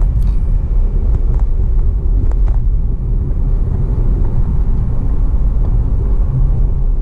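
Steady low rumbling noise with a few faint clicks in the first few seconds.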